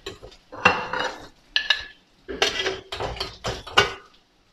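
Steel serving spoon clinking and scraping against a perforated stainless-steel steamer basket while steamed plantains are lifted out: half a dozen separate metallic clinks, some with a brief ring.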